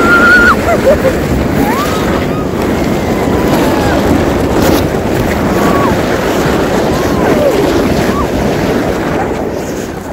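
Loud rushing wind noise on the microphone while riding fast down a snow slide, with a few short rising and falling voice cries over it.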